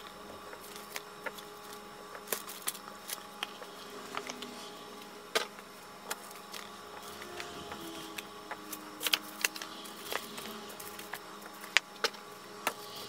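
Solid lotion bars being popped out of a flexible silicone mould and set down on parchment paper: scattered sharp clicks and soft taps, over a faint steady hum.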